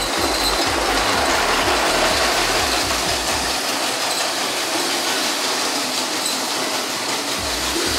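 Motorized Lego City train running on plastic Lego track, a steady whir of its small motor mixed with the rattle of its wheels on the rails.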